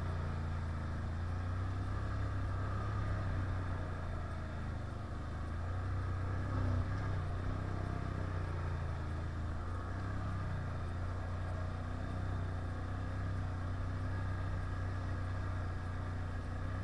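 Can-Am 1000 quad's V-twin engine running steadily under way, with small rises and falls in pitch around the middle.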